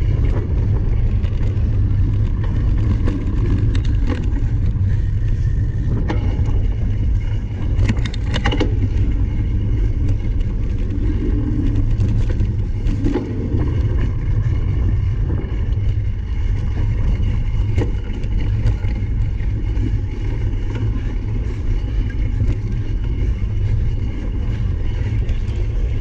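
Wind rumbling steadily on a camera microphone carried by a cyclocross racer while riding, with scattered clicks and knocks from the bike over rough ground.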